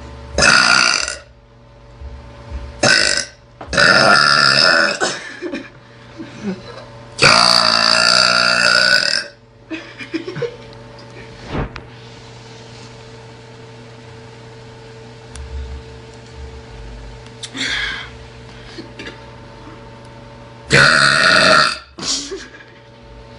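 A teenage girl belching loudly, about six burps in all: short ones near the start and end and two long drawn-out ones, the longest lasting about two seconds.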